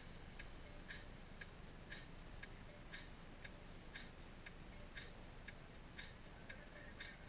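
Turn-signal flasher clicking steadily inside the car's cabin, a louder tick about once a second with a softer one between, over the low hum of the Scion tC's engine.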